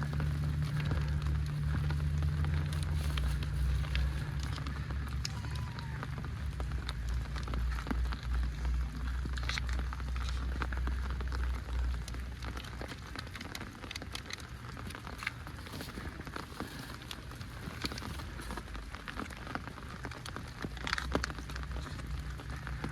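Heavy rain falling, with many drops tapping on an umbrella, over a steady low rumble.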